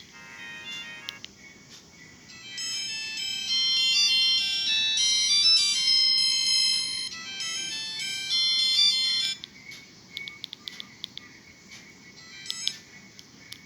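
Olmio Pet A02 mobile phone playing its ringtones: a short high melody at the start, then a louder, busier ringtone melody that stops suddenly about nine seconds in, followed by a few faint clicks and a short tone.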